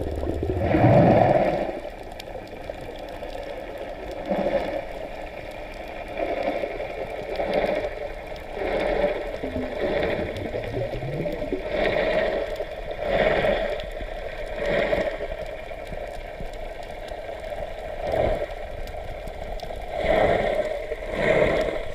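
Muffled underwater noise heard through a camera's waterproof housing: water rushing and bubbling in repeated surges about every one to two seconds.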